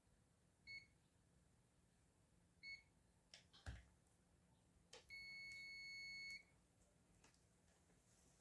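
Digital multimeter beeping faintly while a fuse is tested: two short beeps, a few light clicks of the probes, then one steady beep about a second and a half long.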